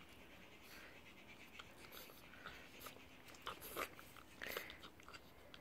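French bulldog puppy chewing treats taken from a hand: faint, irregular little crunches and clicks, with a few louder ones past the middle.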